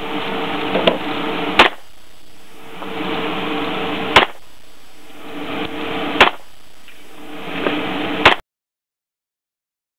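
Gunshots: four loud shots about two seconds apart, with fainter shots between them, over a steady hum. The sound cuts out completely near the end.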